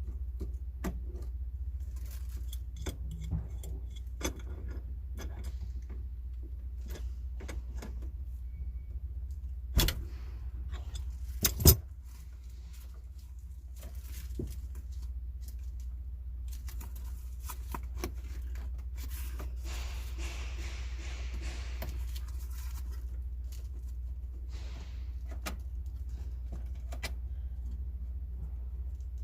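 Metal tools and small hardware clinking and rattling as parts of a parking air conditioner are handled during installation, with two sharp knocks about ten and twelve seconds in and a brief hiss a little after twenty seconds. A steady low hum runs underneath.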